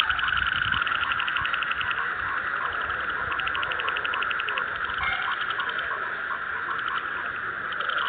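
A chorus of many frogs calling at once: rapid pulsing trills layered over a steady, dense drone of calls, with short croaks repeating at an even pace.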